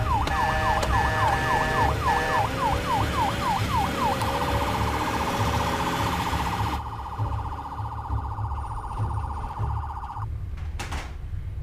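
Ambulance siren yelping, sweeping up and down about twice a second, then switching about four seconds in to a very rapid warble that cuts off about ten seconds in. A steady low rumble runs underneath, and a single sharp click comes near the end.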